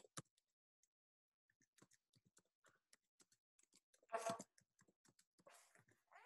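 Faint, irregular clicking of typing on a keyboard, with one brief louder sound about four seconds in.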